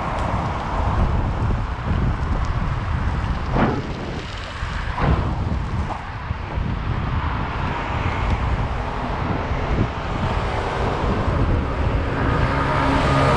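Wind buffeting the microphone of a moving bicycle, with rumbling road noise, two short sharp rattles about a third of the way in, and a humming tone with several pitches coming in near the end.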